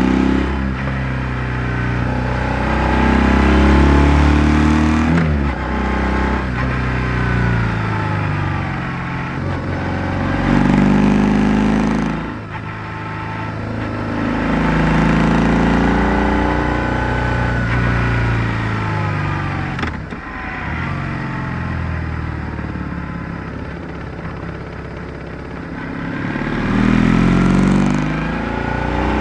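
BMW R1100R's air- and oil-cooled boxer twin engine running under load while riding, picked up by a microphone under the seat. The engine note climbs and falls repeatedly as the throttle is opened and closed, with a few brief drops in between.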